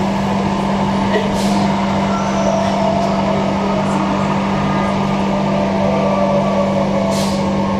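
Cabin noise of a Transperth A-series electric multiple unit under way: a steady electrical hum and a whine that slowly falls in pitch, over the rumble of wheels on rail. Two brief clicks come through, one near the start and one near the end.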